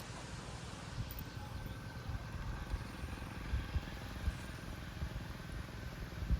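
A small engine running steadily, with an uneven low rumble over it.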